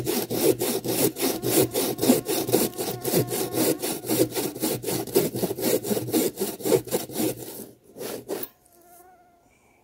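Hand pruning saw, a Silky Gomtaro, cutting through a fallen pine log in quick, even strokes that stop about eight seconds in. After that a fly buzzes faintly.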